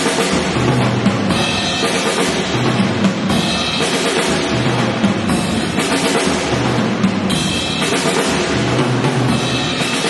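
Music with a drum kit playing a steady beat over a repeating low bass figure.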